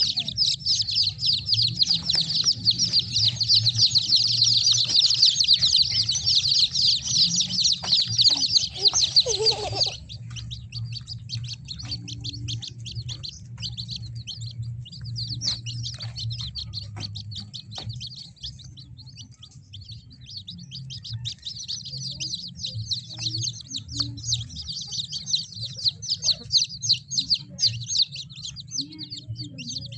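Kampung chicks peeping, many at once: a dense chorus for about the first ten seconds, sparser in the middle, then building again in the second half. A steady low hum runs underneath.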